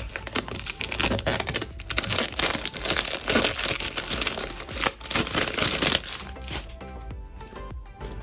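Earphone packaging being handled and opened, crinkling and rustling with many small crackles, heaviest for the first six seconds or so, over background music.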